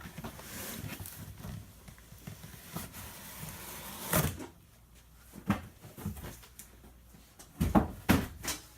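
Cardboard box being handled and its top slid off, with a faint scraping rustle and a few sharp knocks, several coming close together near the end.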